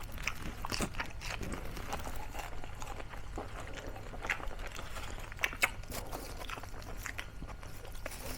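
Close-up chewing and crunching of crispy fried pork mesentery (chicharong bulaklak), with scattered sharp crackles, the sharpest about four and five and a half seconds in.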